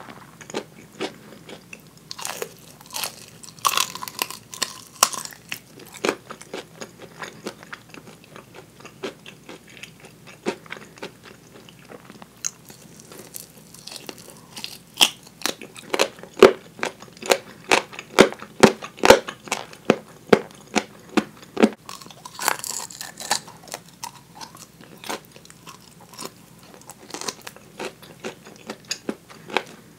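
Close-miked eating: biting and chewing crisp-coated fried chicken drumettes, with wet chewing and crackly crunches. About halfway through comes a quick run of the loudest crunches.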